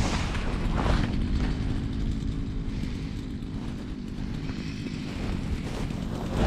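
A small engine running steadily, a low rumble with no change in pitch.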